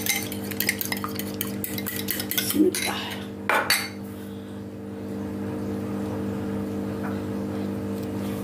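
Beaten eggs being stirred in a bowl with a metal utensil: rapid clinking against the bowl that stops about four seconds in, after a couple of louder knocks. A steady low hum runs underneath.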